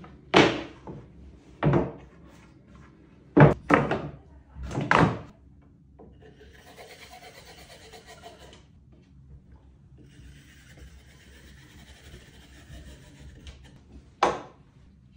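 Melamine-faced boards knocked and set down on a wooden workbench, about five sharp knocks in the first five seconds. Then two stretches of soft hiss as wood glue is squeezed from a bottle along a board edge, and a last knock near the end.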